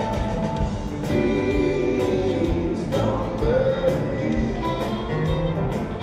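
Live rock band playing a song: electric guitars and drums, with singing.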